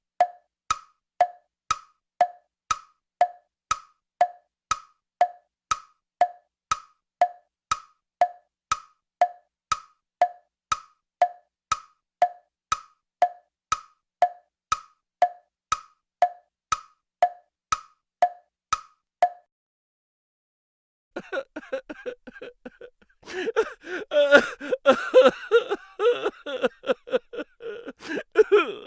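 A short pitched pop sound effect repeated evenly, about twice a second, for some twenty seconds, then stopping. After a brief gap a different, denser sound with shifting pitches comes in and grows louder.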